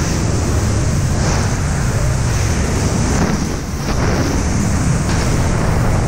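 Loud, steady rush of freefall wind buffeting the camera's microphone during a tandem skydive.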